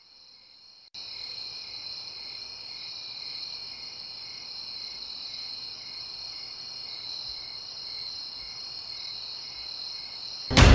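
Insect chorus, mostly crickets: steady high trilling with a slower chirp pulsing about twice a second, coming in about a second in. Loud music cuts in suddenly at the very end.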